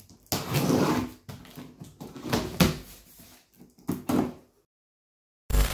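Box cutter slicing through the packing tape on a cardboard box, then the cardboard flaps being pulled open: several separate scraping, rustling strokes. Music starts right at the end.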